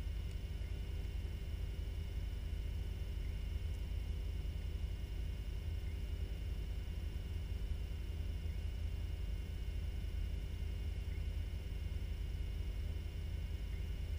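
Steady low hum and rumble with a few faint steady tones above it, picked up by a camera submerged in an aquarium: the tank's running equipment heard through the water and the camera housing.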